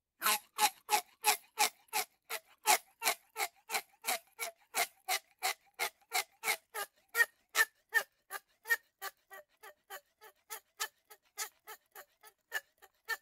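Rose-ringed parakeet calling: an even, rapid series of short, harsh screeches, about three a second, growing somewhat fainter in the second half.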